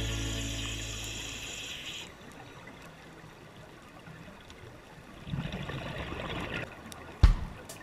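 Underwater: backing music fades out over the first two seconds, leaving a low hiss. About five seconds in, a second-long gurgle of scuba regulator exhaust bubbles. A single sharp knock just before the end.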